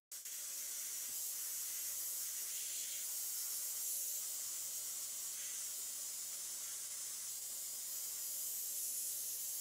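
Airbrush spraying paint: a steady hiss of air through the nozzle that starts suddenly and holds even.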